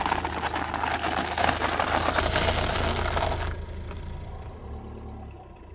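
Blocks of dry instant ramen noodles crunching and crackling under a car tyre, a dense run of snaps that dies away about three and a half seconds in. A low car engine hum runs underneath.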